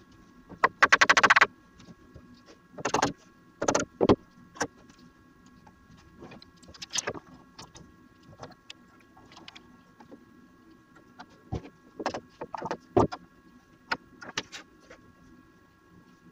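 Mallet knocks and steel sash clamp handling on a beech door frame: a fast metallic rattle about a second in, then scattered sharp knocks of wood and metal as the clamp is set across the rail and tightened.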